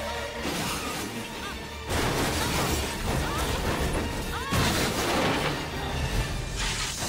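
Car crash in a film soundtrack over dramatic background music: three sudden heavy crashes, about two seconds in, midway and near the end, with glass shattering.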